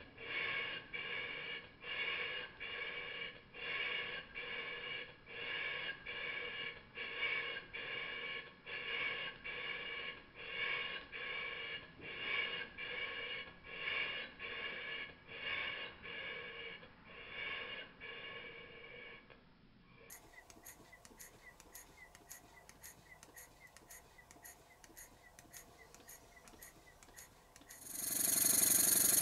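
Stuart 10V model steam engine running slowly on compressed air, its exhaust beating in an even rhythm of a little under two puffs a second, with the sound slowed down. About two-thirds of the way through, the beat fades to faint rapid ticking. Near the end a louder steady running sound of another model engine starts.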